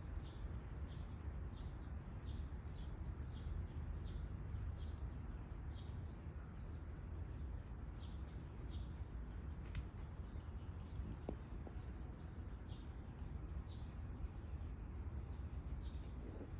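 Small birds chirping in a steady string of short high notes, about one a second, thinning out in the middle, over a steady low outdoor rumble.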